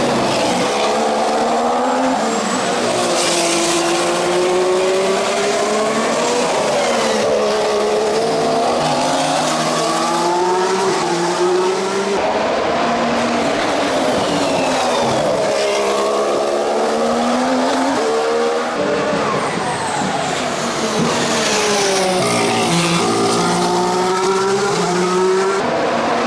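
2014 Formula One car's 1.6-litre turbocharged V6 engine at racing speed, its pitch climbing in steps through the gears and dropping back several times as the car accelerates and slows for corners.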